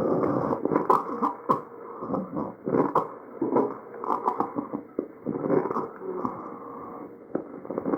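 Tracheal breath sounds picked up by a stethoscope, muffled and cut off at the top. Breaths come in uneven swells every second or two, with short crackles scattered through them.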